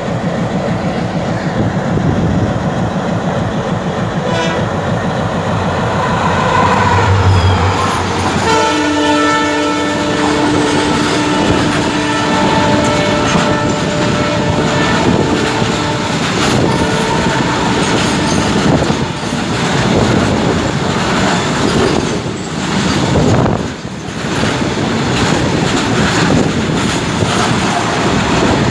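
A freight train of open box wagons running past close alongside a moving passenger train, its wheels clattering in a fast steady rhythm. A train horn sounds about eight seconds in and holds for several seconds before fading.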